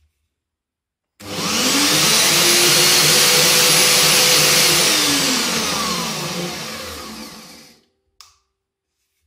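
Scheppach MSB1100 metal band saw running free with no workpiece: the motor and blade start suddenly about a second in with a steady whine, then spin down with falling pitch once the trigger is let go and stop near the end. A short click follows.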